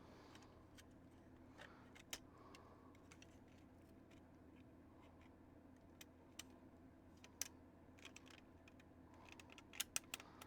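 Near silence with a few faint, sharp clicks and taps scattered through it: small model-kit parts being handled and fitted together on the workbench.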